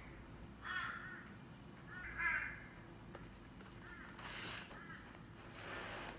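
A bird calling outside, four loud calls about a second and a half apart, the second the loudest.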